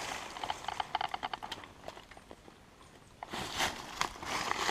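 Scattered light clicks and rustling, a short quieter spell, then louder rustling and crunching from about three seconds in: movement and handling through dry leaf litter and scrap debris.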